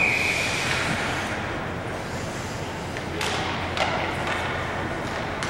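Ice hockey rink noise: a short steady whistle tone that cuts off in the first half-second, then a steady arena din with two sharp thuds about three seconds in, like a puck or players hitting the boards.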